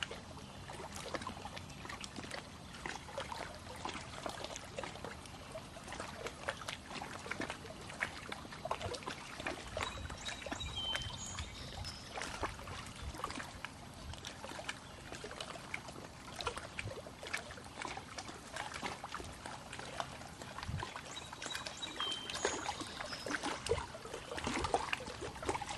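Lake water lapping and trickling at the shore, a continuous patter of small splashes. A small bird chirps briefly about eleven seconds in and again a few seconds before the end.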